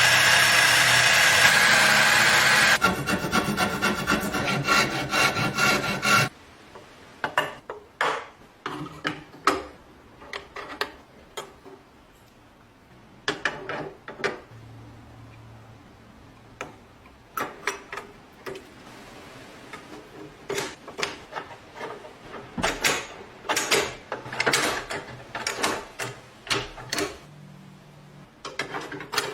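A power tool works a rusted metal lock for about six seconds and cuts off suddenly. After that come irregular short scrapes and clicks of hand work on the metal.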